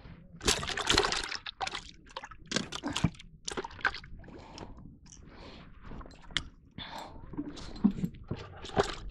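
Water sloshing and splashing in short, irregular bursts, mixed with brief knocks and scrapes of handling.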